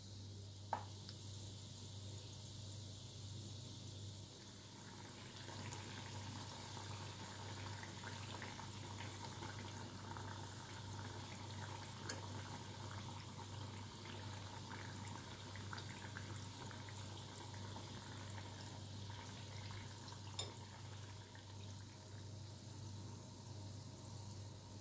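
Vegetable oil sizzling and crackling around dough sticks shallow-frying in a pan, the crackle growing busier about five seconds in. A few sharp taps stand out, the first about a second in.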